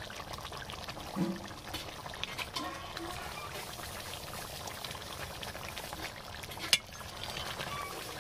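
Mutton curry bubbling in a large metal kadai as a metal ladle stirs and lifts the gravy and pours it back, with light scrapes and clinks against the pan. One sharper metal click comes near the end.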